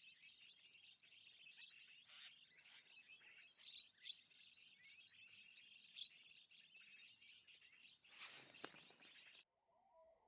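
Faint, dense chattering of many birds, a flock of Javan mynas (jalak kebo), with occasional louder single calls. It cuts off abruptly near the end, giving way to a lower warbling sound.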